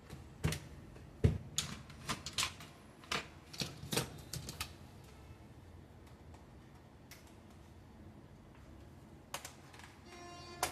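Sharp clicks and taps on a laptop's plastic case as it is handled and taken apart, about a dozen in the first four and a half seconds with one heavier knock just over a second in, then two more clicks near the end.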